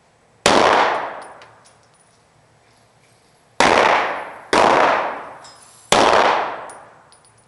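Four pistol shots, the second and third in quick succession. Each is a sharp crack followed by about a second of echo off the hard walls of an indoor range.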